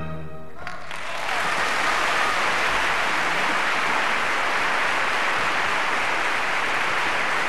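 Audience applauding, the clapping swelling up about a second in as the orchestra's last chord dies away, then holding steady.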